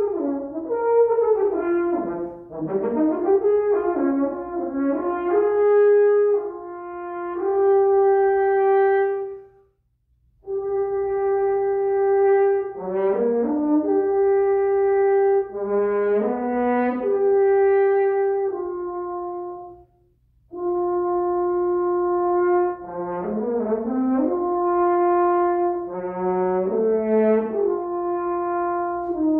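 Unaccompanied French horn playing a melodic solo line, with flowing runs and long held notes, broken by breath pauses about ten and twenty seconds in.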